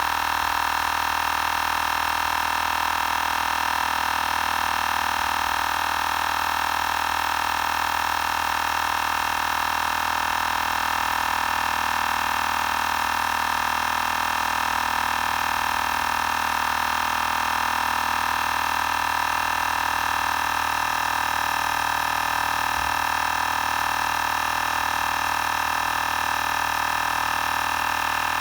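Xiaomi Portable Electric Air Compressor 2 running steadily as it pumps up a nearly empty spare tyre: a continuous high motor and pump drone.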